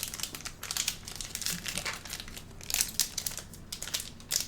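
Plastic trading-card pack wrapper crinkling and crackling in quick irregular bursts as it is handled and opened.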